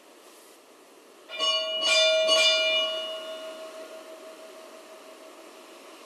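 Church bell struck three times in quick succession, then ringing on and slowly dying away.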